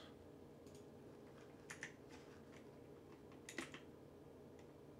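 Near silence with a few faint, separate computer keyboard clicks, about a second or more apart.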